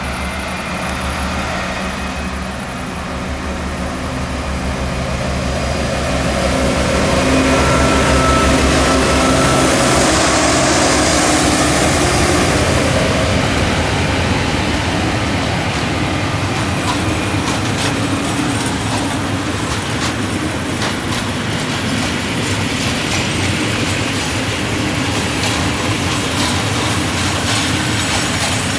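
An M62 diesel locomotive's two-stroke V12 engine works hard as it pulls away with a loaded coke train, throwing out heavy black smoke. The engine grows louder as it approaches, is loudest as it passes, then fades. After that, the loaded hopper wagons roll by with an irregular clatter of wheels over the rail joints.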